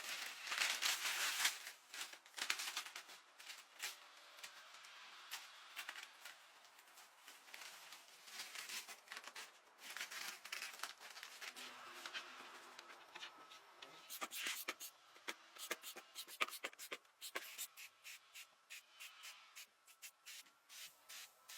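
Hand-work noises: stretches of scraping and rubbing, with many small clicks and taps that come thicker in the second half.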